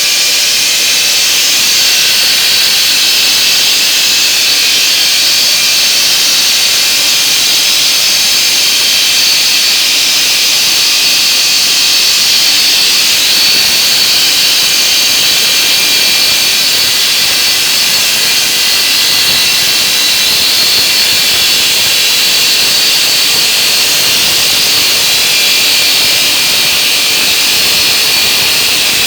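Homemade semi-automatic stone-cutting saw running steadily with its blade cutting stone: a loud, even, high-pitched whine and hiss that does not let up.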